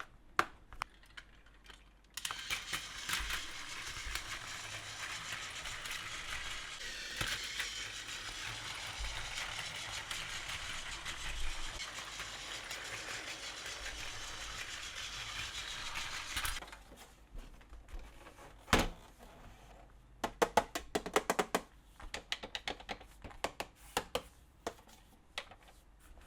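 A battery-powered plastic toy train set runs with a steady rattling whir. It switches on abruptly a couple of seconds in and cuts off about fourteen seconds later. Then come a series of sharp plastic clicks and clatters, as of toy pieces being handled.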